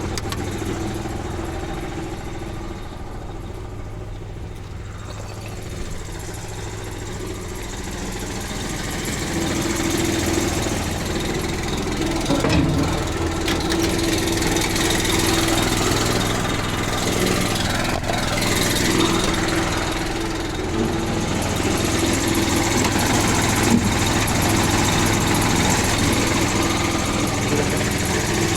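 Engine-driven air compressor running steadily while inflating a semi-truck tire, its engine hum getting somewhat louder about a third of the way in, with a few brief knocks.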